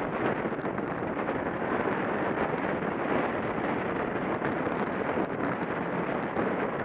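Steady rush of wind on the microphone of a track bike riding at about 28 mph, mixed with the hum of tyres on the wooden velodrome boards.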